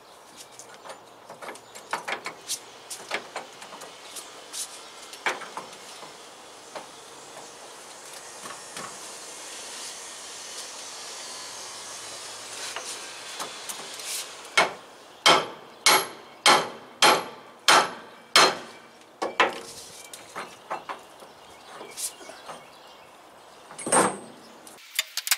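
Clinks of metal parts being handled, then a run of about eight sharp hammer blows, roughly two a second, as a copper-faced hammer drives the bolt of a new torque rod into its mount on a truck's rear axle. A few spaced blows follow, with one loud knock near the end.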